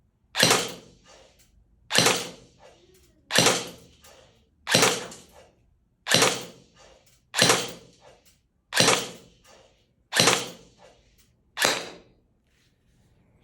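Novritsch SSE18 airsoft pistol fired nine single shots, one about every one and a half seconds, each a sharp crack with a short ringing tail.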